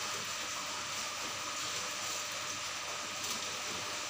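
Steady hiss of running aquarium water from the tank's filter and aeration, even throughout with a faint high tone under it.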